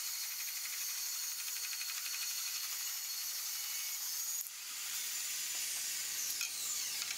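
Bandsaw running, its blade cutting through a pallet-wood board with a steady hiss. The sound drops a little about four and a half seconds in as the cut finishes and the blade runs free.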